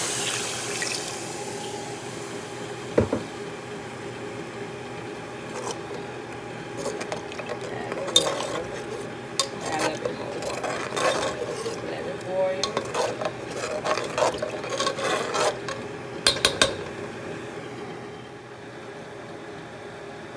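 Metal slotted spoon stirring kidney beans in liquid in a metal pot, scraping and clinking against the pot, with a sharp knock about three seconds in and a cluster of clinks near the end. At the start a sizzling hiss from the hot pot fades away.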